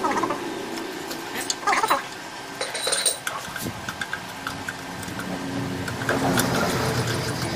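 Steel combination wrench clinking and scraping on a rusted bolt of an old air compressor, with a few sharp metal clicks.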